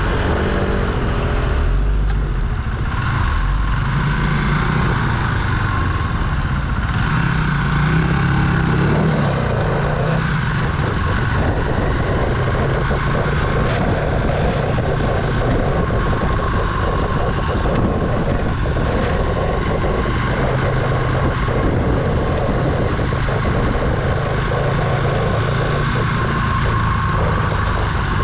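Archive AM60 125cc single-cylinder motorcycle engine running while riding at town speeds, its note rising and falling with the throttle and gear changes.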